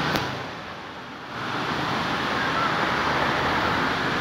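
Steady rushing of a wide, stony river, an even hiss with no pitch. It drops quieter for about a second near the start, then holds level. A short click comes right at the start.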